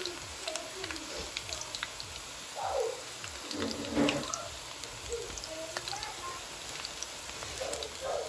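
Battered onion pakoras deep-frying in mustard oil in a cast-iron pan: a steady sizzle with scattered small crackles and pops. A couple of brief louder sounds come about three and four seconds in.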